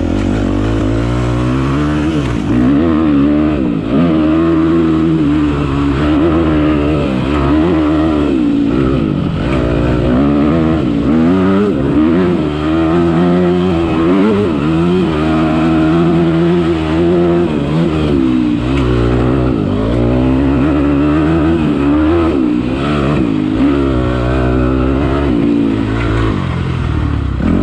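Dirt bike engine being ridden on a trail, revving up and dropping back again and again as the throttle is opened and closed.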